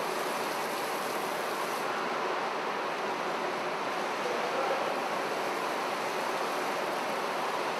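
Steady rush of churning water from machine-made waves in a test pool, with a person in a lifejacket splashing through it.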